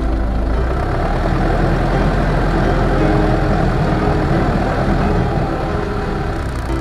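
A 4x4's engine running with rumbling driving noise, a steady low drone under it. Background music fades out in the first second and comes back near the end.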